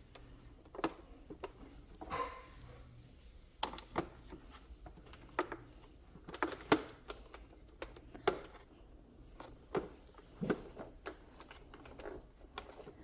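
Irregular plastic clicks and knocks as a Shark vacuum's brush roll and floor-head parts are handled and fitted back into place.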